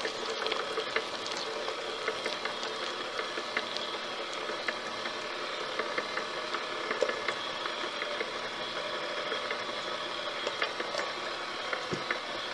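Electric mixer running steadily at low speed, its beaters churning thick chocolate cupcake batter, with faint irregular ticks.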